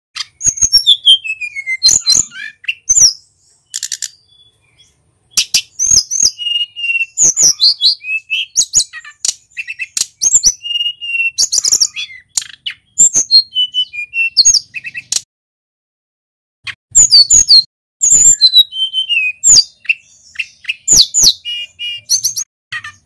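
Male mountain sulingan (sulingan gunung) songbird singing a loud, rapid, varied song of sharp down-slurred whistles, chirps and clicks in bursts, with two short pauses.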